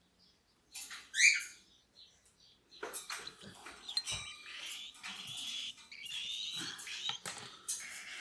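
Cockatiel chicks begging during hand-feeding: one loud rising squawk about a second in, then from about three seconds in a near-continuous run of raspy chirping calls.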